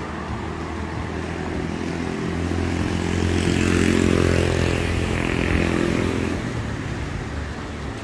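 A motor vehicle's engine passing by on the road alongside, growing louder to a peak about halfway through and fading away again.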